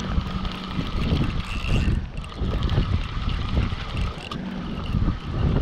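Wind buffeting the camera microphone in uneven gusts, a low rumble that swells and dips.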